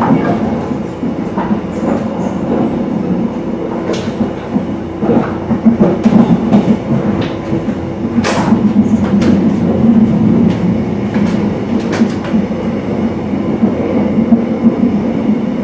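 Mugunghwa passenger train heard from inside the coach while running: a steady rumble of wheels on the rails, broken by sharp clacks as the wheels pass over the track, the loudest about eight seconds in.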